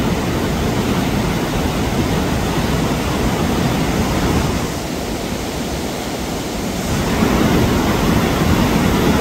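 Steady, loud rush of a mountain waterfall and its fast-flowing stream. It eases slightly around the middle and swells again near the end.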